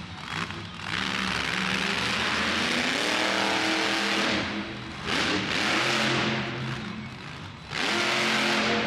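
Monster truck engine revving hard, its pitch climbing partway through, then two more loud blasts of throttle, one midway and one near the end.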